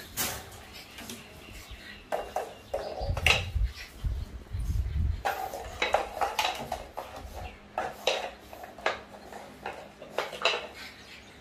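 Pet food bowls, a metal one full of kibble and a plastic one, knocking and clattering on the floor as puppies nose and push them: irregular clinks and knocks, roughly one a second.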